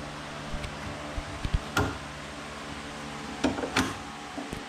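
Scattered light taps and clicks as convertible-top fabric is pulled and tucked by hand against the Beetle's body, in two small clusters, about a second and a half in and again near the end, over a steady low hum.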